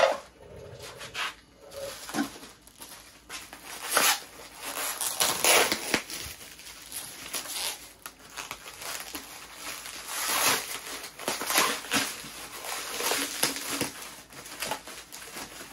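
Clear plastic packaging being pulled open and crumpled by hand, crinkling and rustling irregularly, with louder crackles every few seconds.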